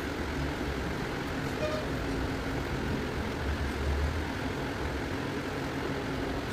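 Steady low background rumble and hiss, with no distinct events.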